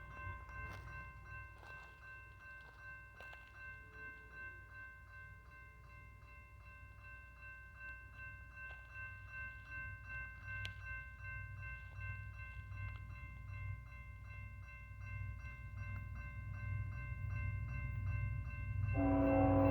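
Grade-crossing bell ringing steadily, with a low rumble of the approaching BNSF freight train growing louder. About a second before the end, the lead locomotive's multi-chime horn starts to sound.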